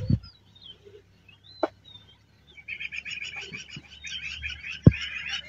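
Wild birds chirping and whistling in open grassland, breaking into a fast, continuous chatter of repeated calls about halfway through. A few sharp knocks cut in, the loudest near the end.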